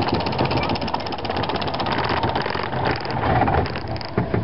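Pinfari Zyklon Z47 roller coaster train being hauled up the chain lift hill, with a rapid, even mechanical clatter of the lift chain and ratchet. The clatter breaks up about three seconds in as the train reaches the top.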